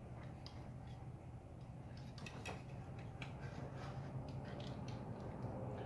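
Faint scattered clicks and taps of hands fitting the ride height sensor and its plastic connector on the rear suspension, over a steady low hum.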